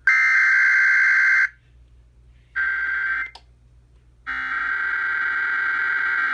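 Emergency Alert System digital header (SAME) data bursts on a NOAA Weather Radio broadcast, the coded signal that opens a severe thunderstorm watch alert: three loud buzzing data-tone bursts with short gaps between them.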